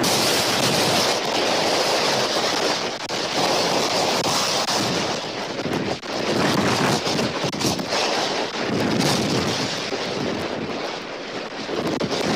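Tropical-storm wind buffeting an outdoor nest-cam microphone: a loud, steady rush that swells and eases in gusts, dipping briefly about six seconds in and again near the end.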